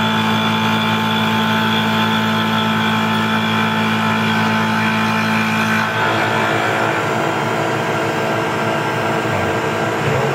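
Tormach PCNC 1100 CNC mill's spindle driving a face mill through 6061 aluminum plate on a roughing pass: a steady machining whine with several held tones. About six seconds in, the tone changes as the cutter runs off the end of the plate.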